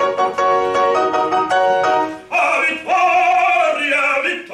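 Classical accompaniment plays a run of short chords. About two seconds in, an operatic baritone voice enters and sings held notes with a wide vibrato.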